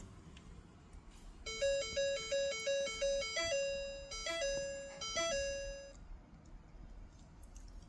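A sequence of electronic chime tones: a quick two-note beep pattern repeated about six times, then a longer held note broken by a few short higher chirps, stopping about six seconds in.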